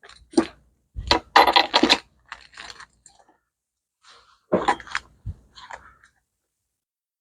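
Clattering: a run of irregular knocks, clinks and scrapes of hard objects being handled, in several short bursts, stopping about six seconds in.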